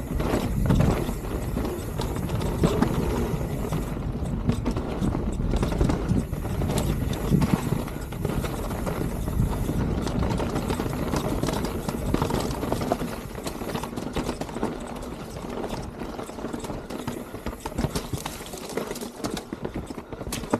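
Mountain bike rolling fast down a rough trail: knobby tyres on dirt and rock, with a constant clatter of knocks and rattles from the bike as it hits rocks and roots. Wind rumbles on the microphone, and the clatter eases somewhat in the last few seconds.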